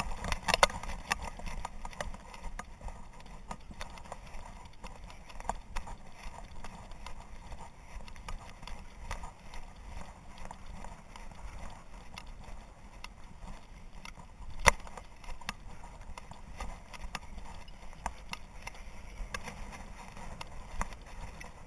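Handling noise from a camera strapped to a hunting dog's harness: rustling and irregular clicks and knocks as the dog and harness move, over a steady low rumble of wind on the microphone. One sharper knock comes about two-thirds of the way through.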